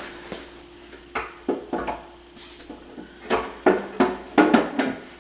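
A series of short knocks and clunks of objects being handled and set down on a workbench, about eight or nine of them, more closely spaced in the second half, over a faint steady hum.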